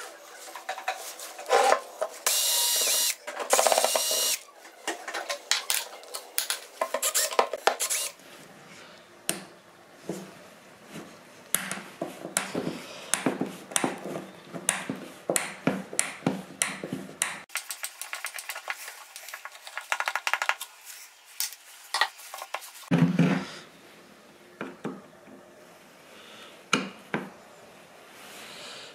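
Workbench tool work: repeated clinks, taps and knocks of tools and small metal parts being handled, with a power tool running in two short spurts about two to four seconds in.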